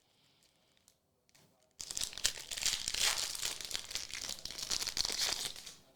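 Trading card pack wrapper crinkling and tearing as the pack is opened. It starts about two seconds in and lasts about four seconds.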